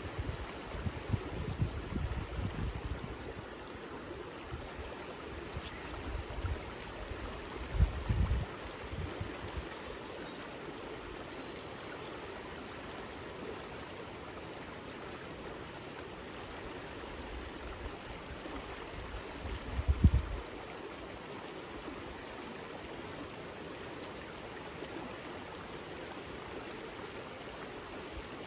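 River current rushing steadily over rocks in a shallow riffle. Brief low rumbles break in near the start, about eight seconds in, and about twenty seconds in.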